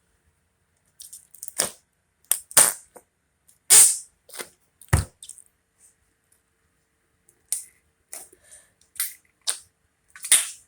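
A string of short, sharp clicks and crackles at irregular intervals, with a lull midway; the loudest come about four and five seconds in.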